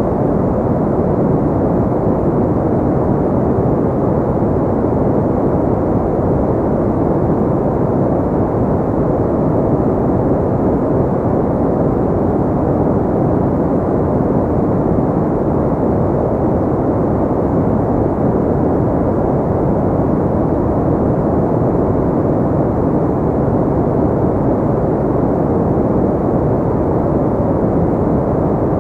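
Steady synthetic noise for sleep, dull and low with no high hiss, even and unchanging throughout.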